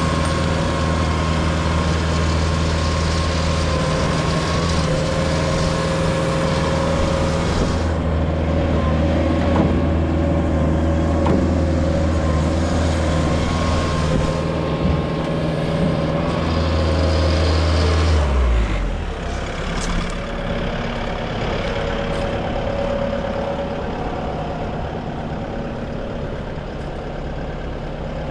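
Bobcat T740 tracked skid steer's Doosan D34NAP turbo diesel engine running steadily at speed. About two-thirds of the way through, the engine speed drops sharply and it runs on at a lower speed.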